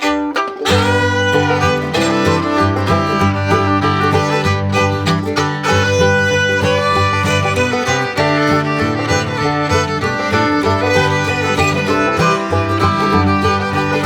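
Background music: an upbeat bluegrass-style tune with fiddle over plucked guitar and banjo.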